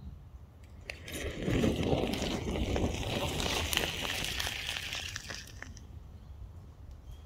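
Overcharged lithium battery in thermal runaway: a hiss of venting gas and flame, full of sharp crackles, starts about a second in and then dies down after a few seconds.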